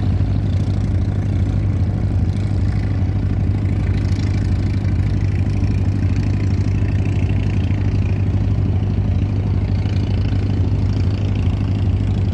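A nearby engine running steadily at constant speed, a low even hum that does not change.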